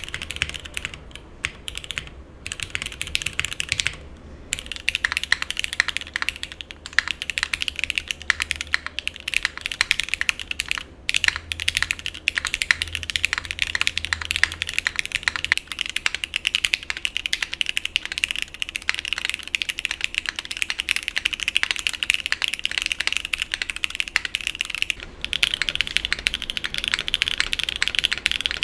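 Fast, continuous typing on custom mechanical keyboards with lubed switches: a dense stream of key clacks, broken by a few brief pauses where typing stops and restarts.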